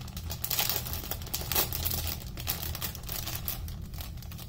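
Clear plastic packaging bag crinkling and rustling as it is handled and pulled open, a steady run of small crackles.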